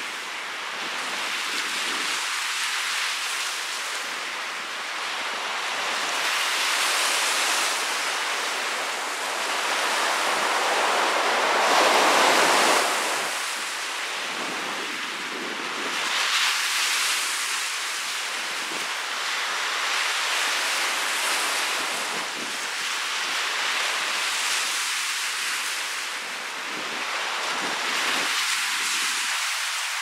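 Small lake waves breaking and washing up a sandy beach, the surf swelling and fading every few seconds, with one louder surge near the middle. A stiff wind blows across the microphone throughout.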